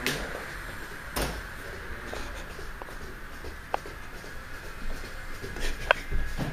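Handling noise from a handheld phone camera moving around a small room: a few scattered soft knocks and clicks, the sharpest near the end, over a steady low hiss.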